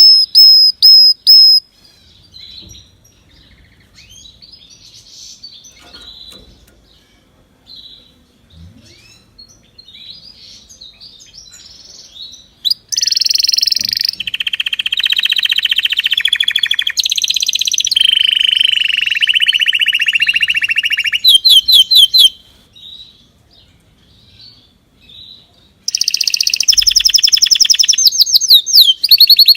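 A songbird singing loud phrases of rapidly repeated high notes and buzzy trills. A quieter stretch of faint chirps fills the first part, and the loud song returns about halfway through and again near the end.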